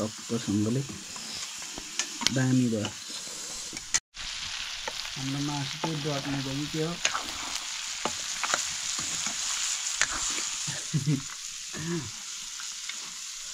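Pork sizzling as it fries in an iron wok over a wood fire, stirred with a metal ladle that clinks and scrapes against the pan. Before this, the sound cuts out completely for a moment about four seconds in.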